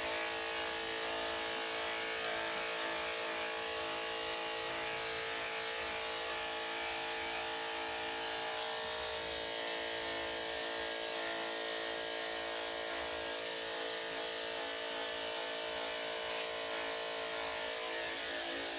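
Electric dog clipper fitted with a #7 blade, running with a steady, even hum.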